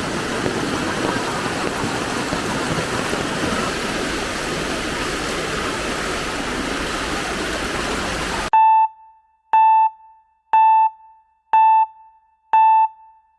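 Steady rushing of fast-flowing floodwater, cut off abruptly about eight seconds in. Five short electronic beeps follow, all at the same pitch, about one a second.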